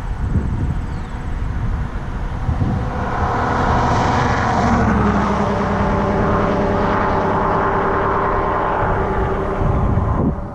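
A motor's steady drone, several held tones, comes in about three seconds in and carries on until near the end, over low rumbling wind noise on the microphone.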